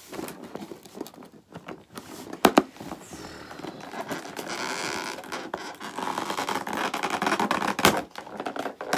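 Toy packaging being handled and worked at: plastic and cardboard crinkling and rustling, with a few sharp clicks and taps, the loudest about two and a half seconds in. The rustling is busiest from about three seconds in until near the end.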